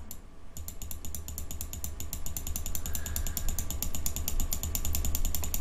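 Rapid, evenly spaced clicking of a computer keyboard key being tapped over and over, about eight clicks a second, over a steady low hum.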